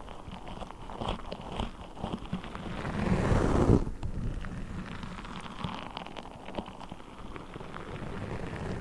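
Orange Orbeez water beads handled close to the microphone: a dense patter of small clicks, swelling louder about three seconds in.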